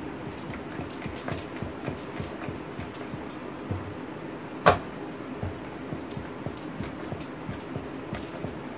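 Stainless-steel rolling pin with plastic handles rolling thin paratha dough on a round board: a steady run of small clicks and rubbing, with one sharper knock a little past halfway.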